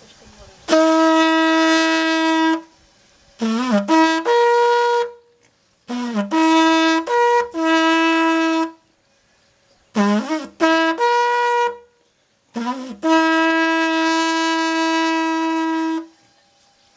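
A Timok bucium, a homemade alphorn of linden bark bound together and lined with a plastic tube, is blown in a short traditional signal tune. A long held note opens it, then three phrases jump quickly between the horn's few natural notes, some scooping up into pitch, and a long held note closes it.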